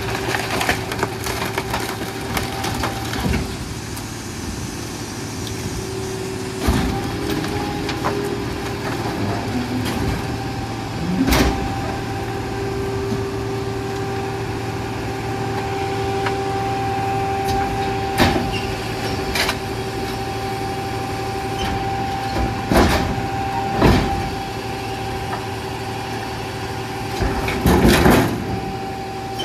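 Pak-Mor rear loader garbage truck's diesel engine running with a steady hydraulic whine as the packer blade cycles, compacting construction and demolition waste. Wood and debris in the hopper crack and bang sharply several times as they are crushed.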